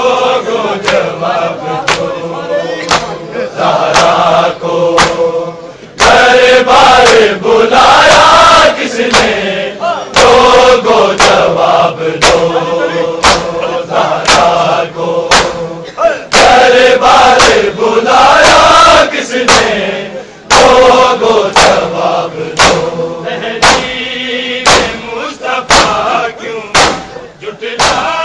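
Male voices chanting a devotional lament with a chorus, in long swelling phrases, over a steady beat of sharp strikes about every two-thirds of a second.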